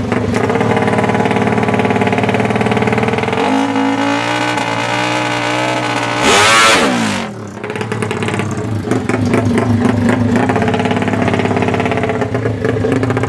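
Yamaha MX King motorcycle engine running and revving, with its pitch stepping up a few seconds in. The loudest moment is a sharp rev about six seconds in that falls away in pitch, after which it settles back to a steady run.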